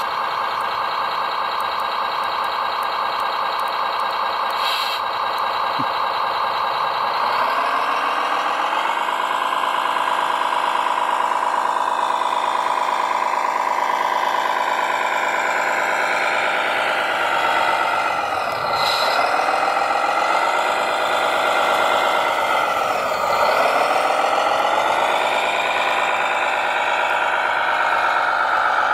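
Remote-control construction vehicle running with a steady motor sound. Its pitch rises about a quarter of the way in and dips sharply twice later on.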